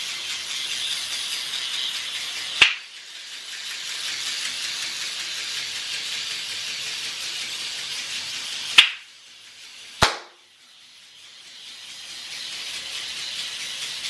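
Small battery-driven gear motor of a walking robot spider, whirring with its legs clattering on a table. Three sharp hand snaps trigger its sound-activated receiver, a few seconds apart and then twice about a second apart. After each one the motor noise drops away and builds up again as the spider reverses direction.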